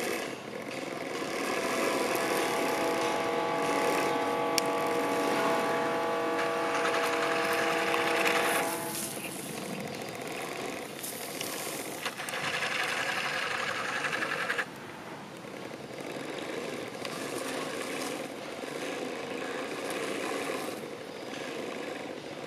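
The hydraulic pump and motor of a 3D-printed 1/16-scale RC excavator running with a mechanical buzz that changes as the boom and bucket work. A steady whine holds for several seconds near the start, there is a louder stretch past the middle, and it drops to a lower level about two-thirds of the way through.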